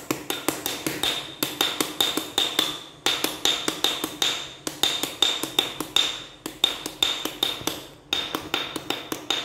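A pair of sticks tapped quickly and rhythmically on a hard surface, improvised drumming with a sharp, ringing tick on every stroke. The taps come in repeating phrases about one and a half seconds long, with a short break between phrases.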